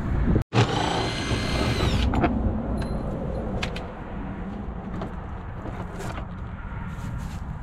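The plastic door-step cover of a Renault Master van being worked loose by hand. It gives a high plastic squeal lasting about a second and a half, then scattered clicks and knocks as the panel is handled.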